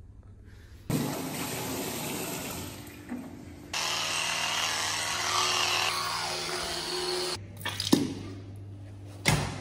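Water running from a washroom tap into a sink, starting abruptly about a second in and cutting off sharply after about six seconds, with a steady electric-toothbrush buzz in its second half. A couple of sharp knocks near the end.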